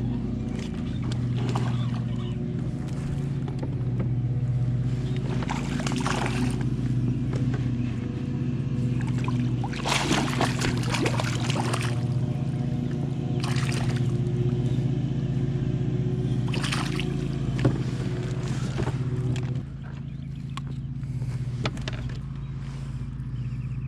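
Boat motor running with a steady low hum that drops away about twenty seconds in, with water splashing and sloshing now and then.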